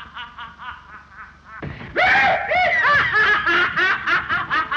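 High-pitched, rapid laughter from an old film soundtrack: a run of quick 'ha-ha' bursts at about five a second that trails off, then breaks out again louder about two seconds in and keeps going.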